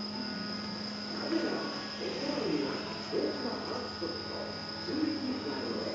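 Room tone: muffled voices in the background over a steady high-pitched whine and a low hum. No engine is heard running.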